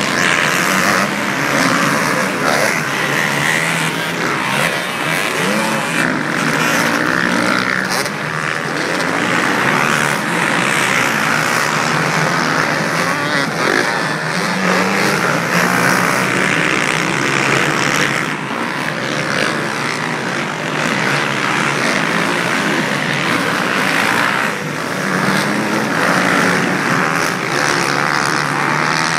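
Several motocross bikes racing round a dirt track, their engines revving and wavering up and down in pitch as they accelerate and back off, blending into one continuous drone.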